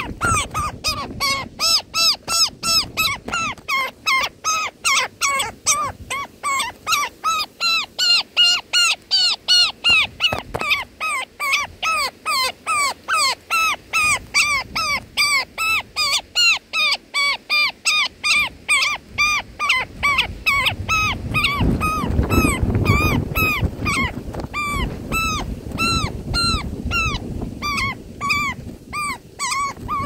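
European roller nestling calling over and over in a rapid run of short, harsh, rising-and-falling calls, about three a second. A low rumbling noise swells underneath about two-thirds of the way through.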